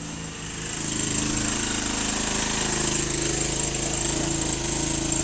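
Ferrex 3300W petrol inverter generator's engine running steadily under load from plugged-in appliances, getting louder about a second in, with a thin high whine over it.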